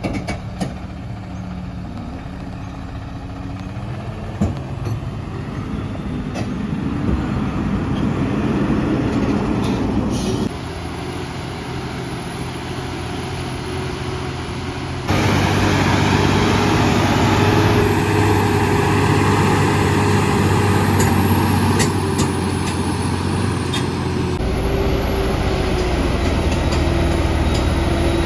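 Heavy logging truck's diesel engine running, a steady low drone with the engine's pitch held level. The sound changes abruptly in loudness and tone about 10, 15 and 24 seconds in, getting louder at 15 seconds.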